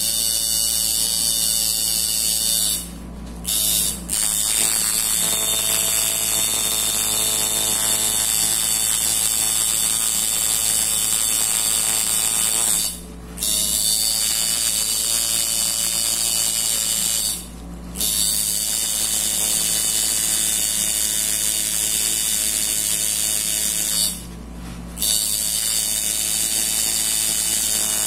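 Electric tattoo machine buzzing steadily as the needle works into artificial practice skin, stopping briefly and starting again four times.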